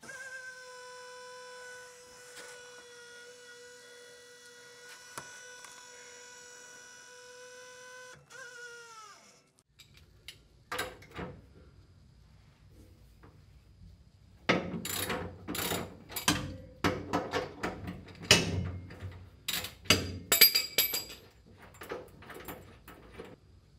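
A steady whine that drops in pitch and dies away about nine seconds in, then irregular metal clicks, knocks and clanks of hands and tools working on the linkage under a Porsche 911's body, loudest in a cluster of sharp knocks in the second half.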